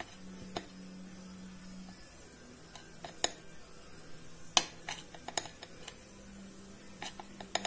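A metal spoon clinking against a cocoa tin and a glass mixing bowl as cocoa powder is scooped and tipped in: scattered sharp clicks, the loudest about four and a half seconds in, with a cluster near the end. A faint steady hum runs underneath.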